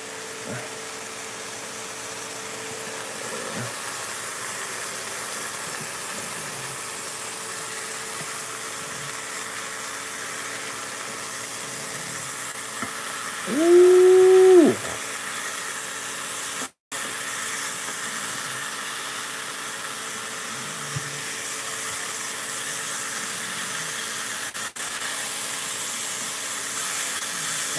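Pieces of armadillo meat sizzling steadily in a skillet on an induction cooktop. About halfway through, a louder held tone of about two seconds rises at its start and falls at its end.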